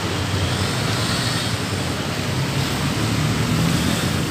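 Steady street traffic noise with a motor vehicle engine running close by.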